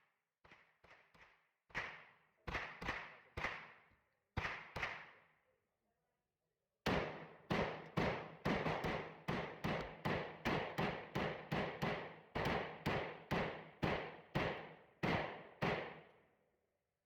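7.62 AR-15 rifle fed from a ProMag 50-round drum, fired in quick succession: a burst of loud shots, a pause of about two seconds, then a steady string of about twenty shots, roughly two a second. A few fainter gunshots come at the start.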